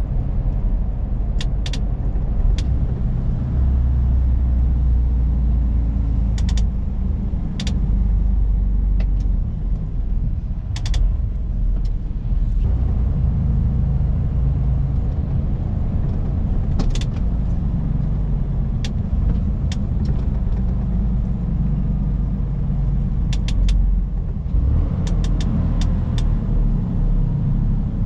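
Mercedes-Benz truck's diesel engine running as the truck drives at low speed, heard from inside the cab, with its pitch shifting a little as it pulls. Scattered sharp clicks, some in quick pairs or clusters, sound over it now and then.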